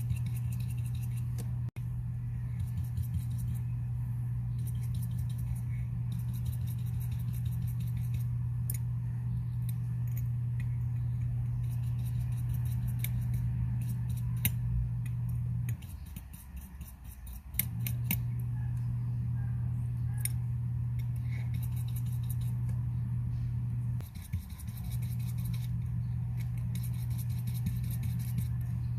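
Many small sharp clicks of metal tools handling tiny watch parts, over a steady low electrical hum that cuts out briefly twice.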